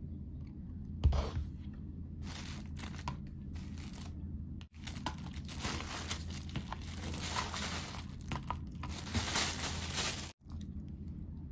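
Thin plastic takeout bag crinkling and rustling in fits and starts as a hand rummages in it, with a single knock about a second in.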